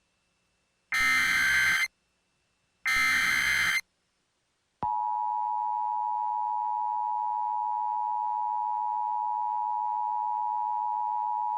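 Emergency Alert System header and attention signal: two bursts of screeching SAME data, each about a second long with a short gap between, then about five seconds in the steady two-tone EAS attention tone begins and holds.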